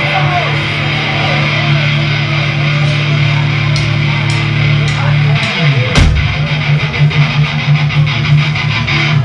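Hard rock band playing live: an electric guitar holds a low note, slides down in pitch about five and a half seconds in, and the full band crashes in with drums about six seconds in, then keeps a steady beat.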